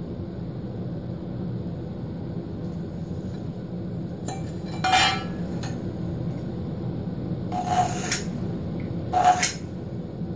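A marking tool scraping along a metal square on a wooden board, three short strokes with a light metallic clink, the first about halfway through and two more near the end, over a steady low room hum.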